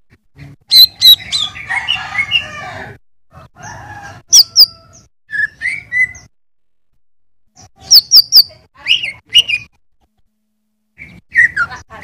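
Male greater green leafbird (cucak ijo) singing. Loud, sharp, high whistled notes come in quick groups of two or three, mixed with a rambling warbled phrase and slurred chirps, with short pauses between bursts.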